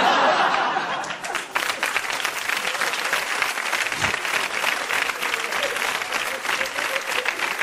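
Studio audience laughing and applauding. The laughter is loudest at the start, then gives way to steady clapping.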